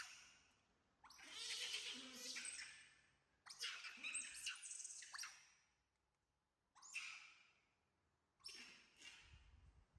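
Young monkey squeaking and chirping in four short bursts of high, gliding calls, with brief quiet gaps between them.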